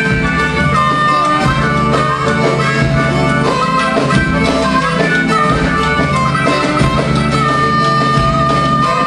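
Live blues music: an amplified harmonica plays held, bending notes over drum accompaniment.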